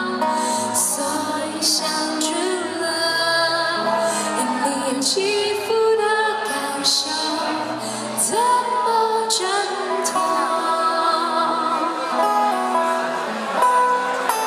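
A woman singing a slow pop ballad live into a microphone, accompanying herself on an acoustic guitar, with held notes that glide between pitches.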